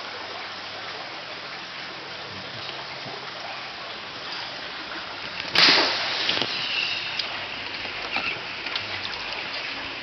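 Water running or bubbling steadily, then a sudden loud splash about halfway through, followed by smaller splashes and drips: a koi thrashing in the water as it is handled.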